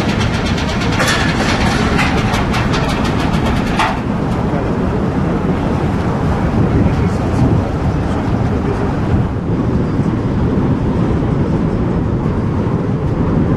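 Stern vehicle ramp of the ferry Mega Express Two being raised off the quay. A rapid metallic clatter in the first few seconds gives way to a steady low rumble of ship machinery.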